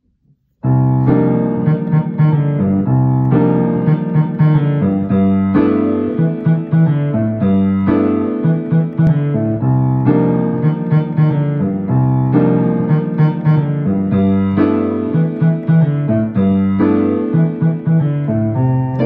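Piano being played, starting suddenly about half a second in: a tune in chords that change roughly every two seconds over repeated low notes.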